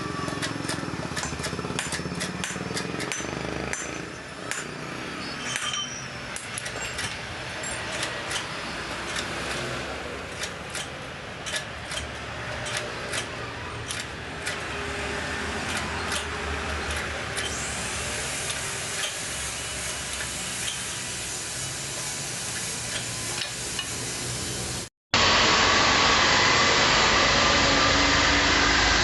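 Workshop noise: many short metallic clicks and knocks of hand tools over a steady background. Near the end, after an abrupt cut, a louder steady rush of passing traffic takes over.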